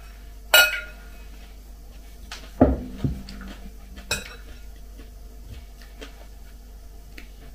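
Metal spoon clinking and scraping against a glass salad bowl as salad is scooped up, a few separate clinks. About two and a half seconds in, a heavier knock as the glass bowl is set down on the table.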